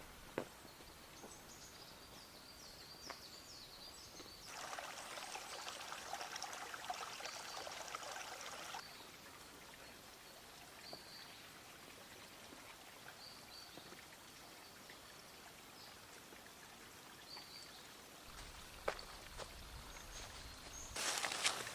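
Water being poured, starting about four seconds in and lasting about four seconds, then starting again near the end.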